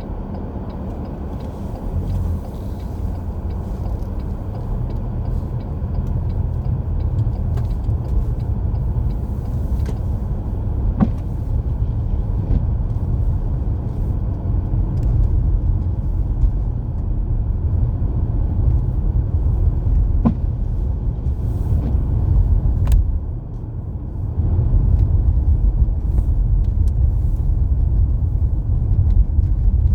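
Steady low rumble of a car's road and engine noise heard inside the cabin while driving, with a few faint clicks; it dips briefly and then grows a little louder near the end.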